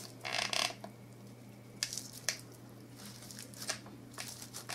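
Dry straw bows rustling and crinkling as they are handled and pressed into place, with a burst of rustling near the start and a few light ticks later. A faint steady hum runs underneath.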